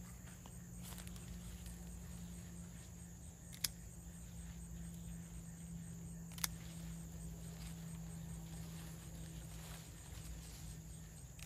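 Two sharp snips of hand pruning shears cutting okra pods from the stalk, a little under three seconds apart. Under them run a steady high insect drone and a low steady hum.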